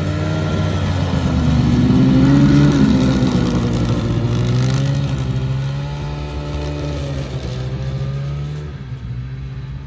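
Ski-Doo Formula snowmobile's two-stroke engine running, its pitch wavering, rising and getting louder about two seconds in, then easing back and settling. It is described as slow but running smoothly.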